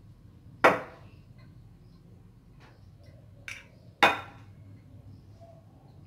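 A metal spoon clinking against glass baking dishes while filling is scooped out: two sharp, ringing clinks, one under a second in and one about four seconds in, with a couple of lighter taps between them.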